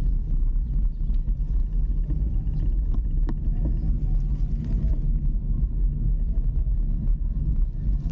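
Steady low rumble of a moving vehicle, with a single sharp click a little over three seconds in.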